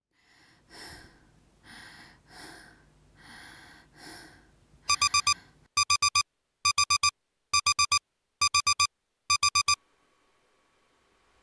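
A few soft breaths, then a digital alarm clock beeping in sets of four quick beeps, six sets in a row, each set less than a second apart; it stops about ten seconds in.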